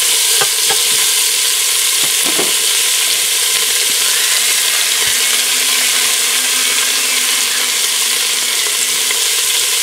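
Cubes of beef steak sizzling steadily as they brown in hot olive oil in the inner pot of an electric pressure cooker. A few knocks from a wooden spoon stirring the meat come in the first two or three seconds.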